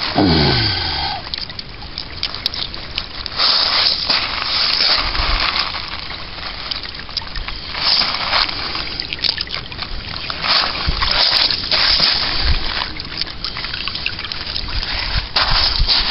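Shallow stream of water trickling over beach sand and gravel, swelling in surges every few seconds.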